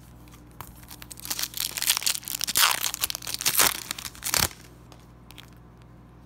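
Foil wrapper of a Wacky Packages sticker pack crinkling loudly as it is torn open by hand and the sticker cards are pulled out, starting about a second in and stopping after about four and a half seconds.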